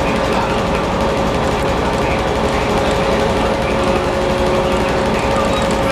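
Steady hum and whine of a WAP7 electric locomotive's machinery at close range, with a second, lower whine joining about four seconds in.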